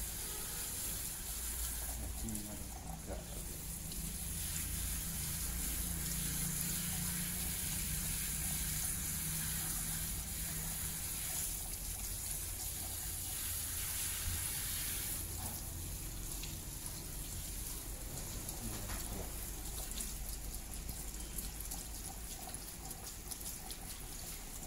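Water running steadily from a salon shampoo-basin hand sprayer onto wet hair and into the basin, a continuous hiss, as freshly dyed black hair is rinsed.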